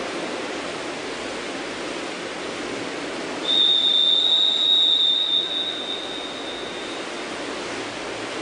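A referee's long, steady whistle blast, starting about a third of the way in and held for about three and a half seconds before fading, the usual swimming signal for the next heat to step onto the starting blocks. It sounds over the steady hiss of the pool hall.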